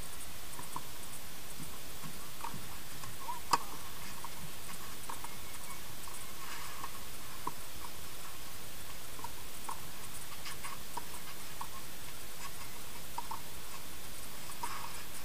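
Steady hiss with faint, irregular ticks, and one sharp knock about three and a half seconds in: a tennis racket striking the ball.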